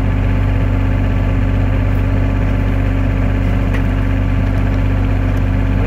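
Terex TC25 mini excavator's engine idling steadily, with an even, unchanging running note.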